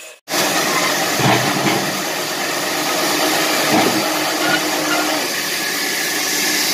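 Band sawmill running with a loud, steady mechanical noise from its drive and blade. The noise cuts in abruptly just after the start.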